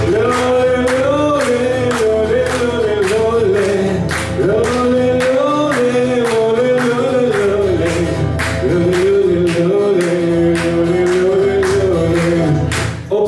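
Man singing a slow lullaby melody in long, drawn-out notes over a steadily strummed acoustic guitar, about three strums a second. The song breaks off abruptly at the very end.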